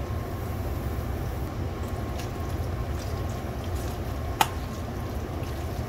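Steady low rumbling background noise, with one short click a little over four seconds in.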